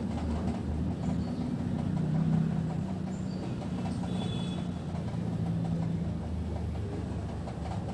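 Steady low mechanical hum, swelling slightly a couple of seconds in.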